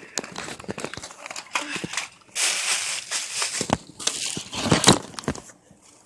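Handling noise from a phone's microphone as the phone is moved about, rubbed against clothing and set down: bursts of rustling and crinkling with a few sharp knocks.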